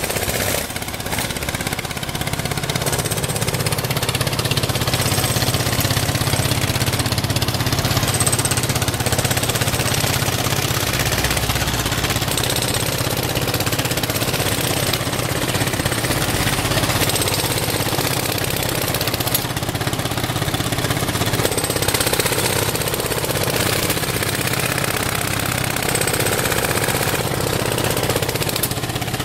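Road maintenance truck's machinery running loudly and steadily, a dense mechanical din over a low engine drone.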